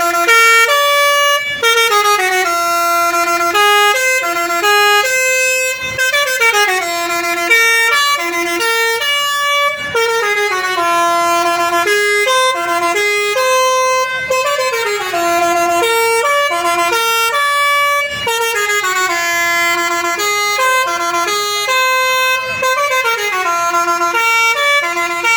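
Telolet bus horn, a multi-tone air horn playing a continuous melody of stepped notes, with sliding downward notes every few seconds.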